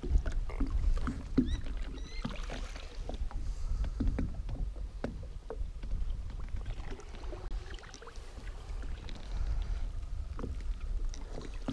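Water lapping and sloshing against an aluminium fishing boat's hull over a low steady rumble, with scattered light knocks and clicks, and two faint short rising chirps about a second and a half in.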